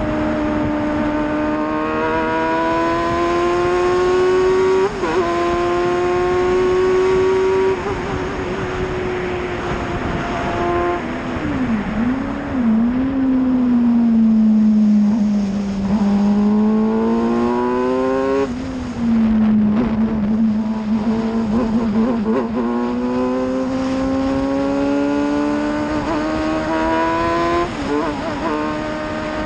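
F1000 open-wheel race car's 1000 cc motorcycle-derived engine at racing speed: revs climb with quick upshifts, fall away through a run of downshifts as the car brakes for a corner about halfway through, then climb again under acceleration, with another upshift near the end.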